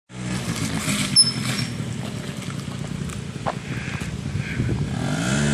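50cc scooter engine idling steadily, its engine speed rising near the end. A short high-pitched squeak about a second in.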